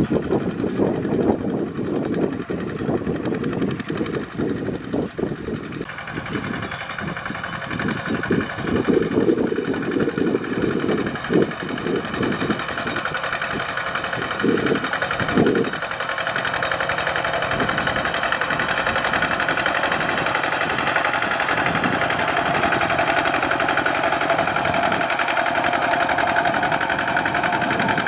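Kubota RT120 walking tractor's single-cylinder diesel engine running under load while pulling a three-disc plow through wet soil. Uneven with low thumping for about the first fifteen seconds, then a steady drone.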